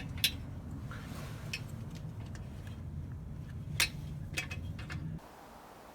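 A handful of light, sharp metallic clicks and taps from metal tools being handled, over a steady low hum. The hum stops suddenly about five seconds in, leaving faint room tone.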